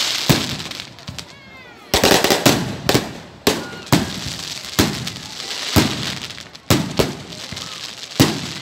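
Aerial fireworks display: an irregular series of about a dozen sharp bangs as shells burst overhead, with crackling between the bangs and a brief whistle about a second in.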